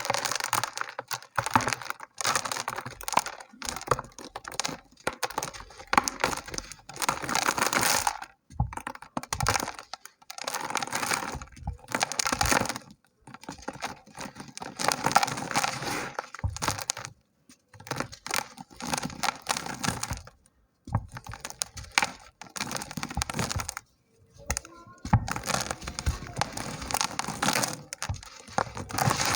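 Small dry chunks of red dirt crumbling and crunching, gritty cracking in repeated short bouts broken by brief pauses.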